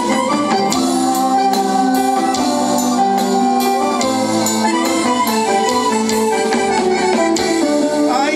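Vallenato band music led by a button accordion over a steady percussion beat, loud and continuous.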